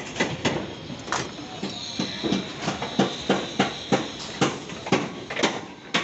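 A quick, uneven run of sharp knocks and clanks, about three a second, with a faint high steady tone for about two seconds in the middle.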